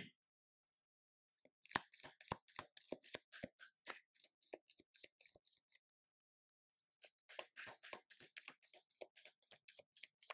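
Tarot deck being shuffled by hand: quick runs of crisp card snaps, about four or five a second, in two bouts of a few seconds each with a short pause about halfway.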